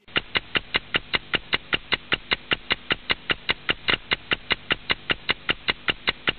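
Rapid, even ticking, about five sharp clicks a second, over a faint steady hiss.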